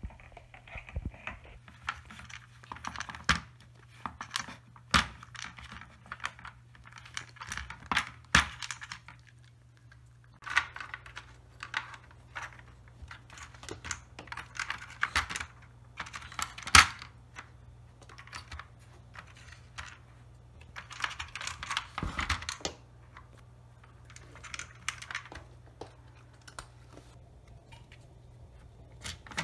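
Plastic pieces of a Nina Ottosson Rainy Day food puzzle clicking and rattling in irregular bursts as a cat noses and paws at its lids and wheel. A few sharper knocks stand out, the loudest about halfway through.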